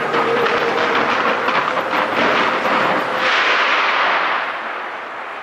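Fireworks barrage fired at close range: a dense, rapid crackle of bursting shells, swelling into a rushing hiss of crackling stars about three seconds in, then fading near the end.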